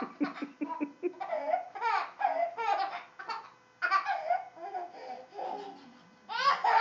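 A toddler laughing in repeated short bursts with brief pauses between them, including a quick run of laughing pulses near the start.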